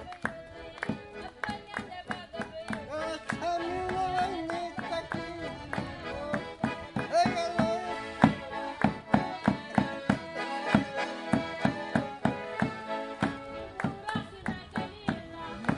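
Accordions playing a lively traditional folk tune, with sharp percussive clacks keeping a steady beat of about three to four a second.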